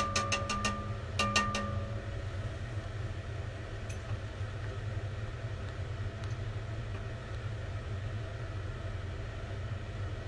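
Gas stove burner running under the pot: a steady low rumble. In the first two seconds there are two short runs of sharp clicks, each with a brief ringing tone.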